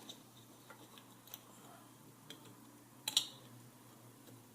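Light clicks and taps of small clock parts being handled as the cover is fitted over the flip clock's motor, with one sharper click about three seconds in. A faint steady low hum runs underneath.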